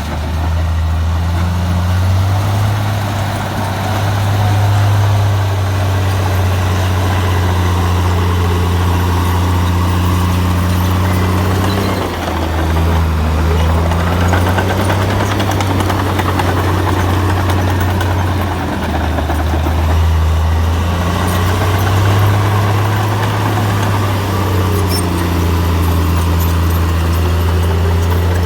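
Heavy diesel earthmoving machinery running continuously, its deep engine note stepping up and down in pitch every few seconds as the load changes, with slow rising and falling whines above it.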